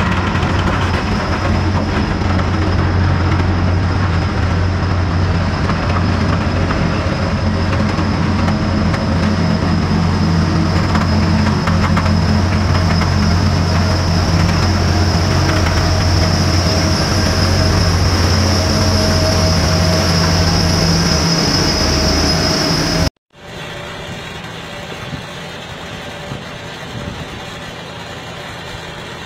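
Heavy diesel engine of a multi-axle girder transporter running steadily as it carries a precast concrete box girder, with a high steady whine above it. It cuts off suddenly about 23 seconds in, giving way to a quieter tractor engine.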